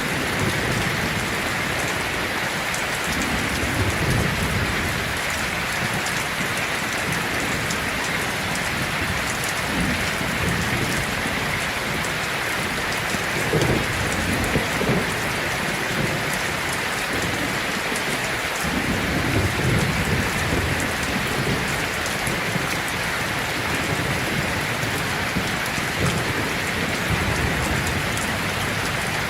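Heavy rain drumming steadily on a tin roof, with low thunder rumbling off and on about four times.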